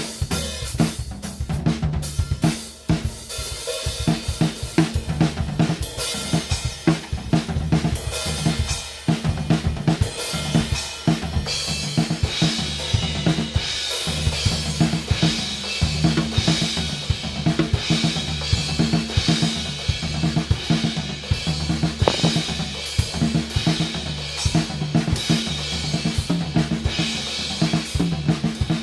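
Drum kit with double hi-hats, three crash cymbals and a splash, played in a busy steady rhythm of snare, bass drum and hi-hats, the cymbals washing brighter from about halfway through.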